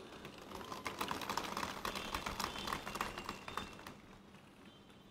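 Faint, scattered clapping from a large seated crowd. It is a patter of irregular claps that dies away about four seconds in.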